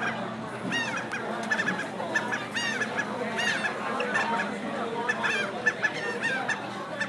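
Seagulls calling over and over, short cries that rise and fall in pitch, over a steady outdoor hubbub.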